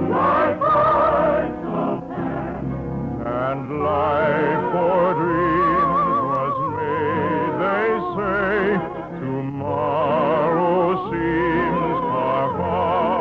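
Orchestra with operatic singing, the voices holding long notes with wide vibrato over a moving bass line.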